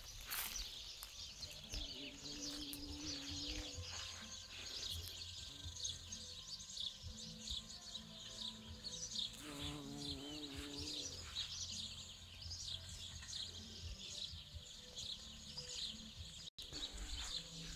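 Songbirds singing, with a steady stream of overlapping chirps, over a low rumble of wind. A low droning tone sounds twice, about two seconds in and again near ten seconds, wavering in pitch the second time.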